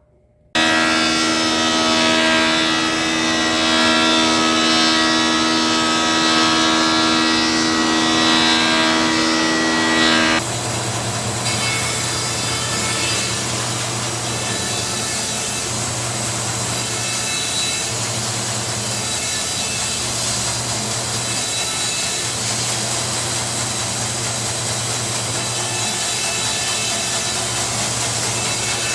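Thickness planer running, milling oak strips down to rib thickness, with a steady motor hum under the noise of the cut. The sound changes abruptly about ten seconds in, to a rougher noise with a low hum that comes and goes.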